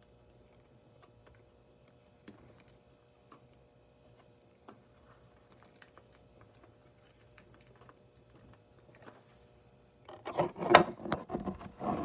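Hands working painter's tape around a rubber balloon on the neck of a mead fermenting jug. There are faint clicks and rustles, then about ten seconds in a loud two-second burst of rasping and crinkling.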